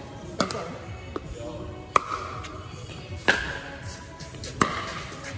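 Pickleball rally: four sharp pops of paddles striking the hollow plastic ball, about one and a half seconds apart, each with a short ringing tail, and a fainter tap between the first two.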